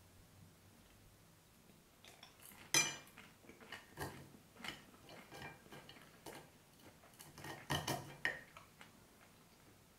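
Metal fork clinking and scraping on a plate while picking at fries. Quiet for about the first two seconds, then a run of irregular clinks, the sharpest about three seconds in and a cluster of louder ones near the end.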